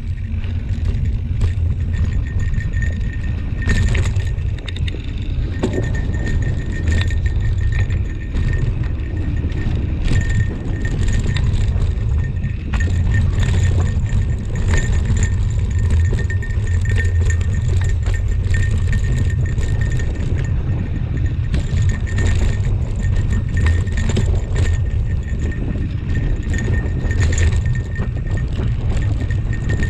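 Mountain bike descending a dirt singletrack: a constant low rumble of wind buffeting the action camera's microphone, mixed with tyre noise on dirt and frequent rattling clicks from the bike over bumps.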